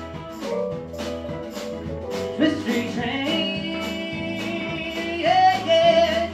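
Live country-rock band playing with a steady beat: acoustic and electric guitars, electric bass and keyboards. A male voice sings a loud, bending line near the end.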